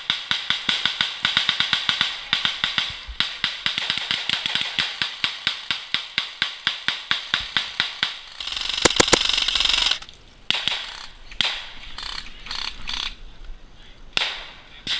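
Airsoft rifle firing a rapid string of shots, about five a second, for roughly eight seconds. A short rustling burst follows, then sparser single shots near the end, as the shooter switches to a pistol.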